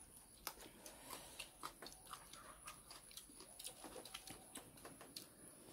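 Faint sounds of people eating by hand: scattered small mouth smacks and clicks from chewing, a few a second, with light touches of fingers in the bowls.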